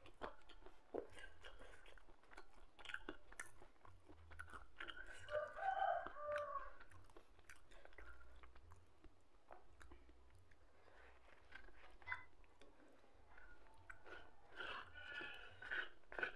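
Faint close-up chewing and crunching of a hand-eaten meal of rice and pecel, with scattered small clicks and smacks.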